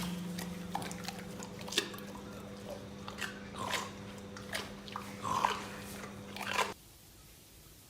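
Crunching, chewing sounds made of short irregular clicks over a steady low hum; everything cuts off suddenly near the end.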